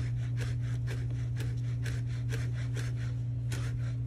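Chef's knife slicing rolled fresh sage leaves into thin strips on a plastic cutting board, about three quick cutting strokes a second, over a steady low hum.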